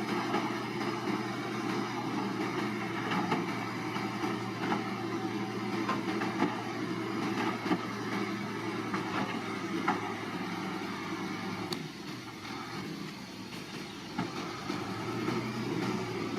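Diesel engine of a heavy earthmoving machine running steadily, with occasional short metallic knocks. The engine note drops briefly about twelve seconds in, then comes back.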